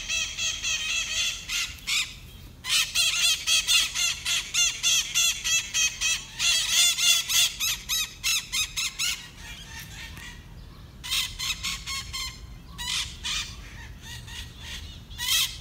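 Small green parakeets (maritacas) screeching: long runs of rapid, harsh, repeated calls, broken by a few short pauses.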